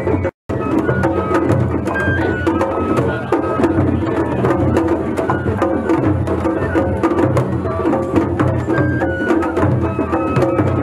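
Japanese festival hayashi music from the floats: drums beating steadily while a bamboo flute plays a stepping melody. The sound drops out completely for a moment about half a second in.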